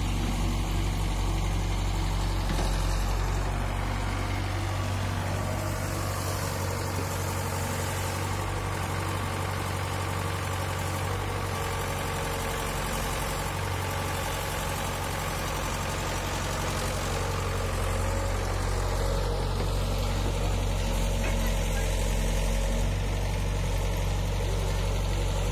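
Diesel engines running steadily: a Hitachi crawler excavator working as it scoops and loads mud, and a Sonalika DI 47 RX tractor idling while its trolley is filled.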